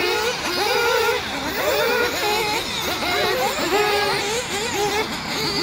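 1/8-scale nitro buggies' small two-stroke glow engines revving, their pitch rising and falling over and over as the cars are throttled around the track, several engines overlapping.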